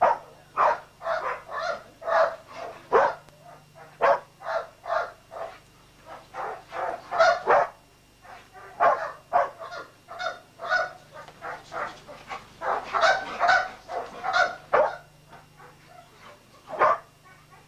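A dog barking over and over in short sharp barks, two or three a second, in runs broken by brief pauses.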